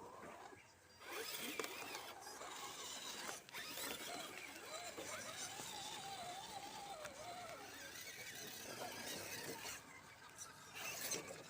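Electric motor and gear train of a radio-controlled scale crawler whining as it drives, the pitch wavering up and down with the throttle.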